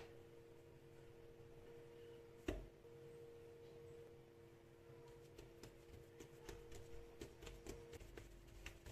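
Near silence with a faint steady two-note hum and one knock about two and a half seconds in. From about halfway on, light irregular taps follow as hands press a ball of bread dough flat on a floured granite countertop.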